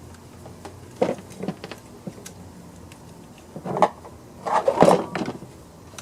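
Handling noise from hands working tools and plastic chainsaw parts during a fuel-line replacement: a few light clicks and taps, then two short bursts of rattling knocks, about three and a half and about five seconds in, the second the loudest. A faint steady hum sits underneath.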